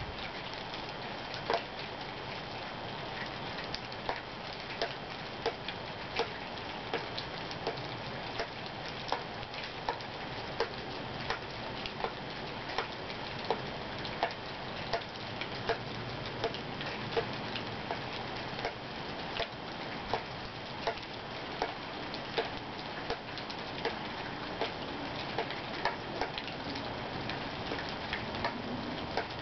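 Steady rain hiss with water dripping at an even pace, a sharp drip a little more often than once a second.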